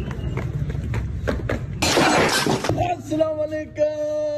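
Low rumbling movement noise with faint footfalls on concrete stairs, then a loud hissing, shatter-like burst of noise lasting just under a second about two seconds in, followed by held notes of background music.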